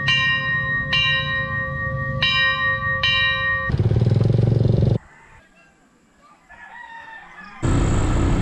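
A bell struck four times, about a second apart, each stroke ringing on. Then a motorcycle runs briefly, a faint rooster crows in a quieter stretch, and near the end a motorcycle engine runs steadily with wind rush.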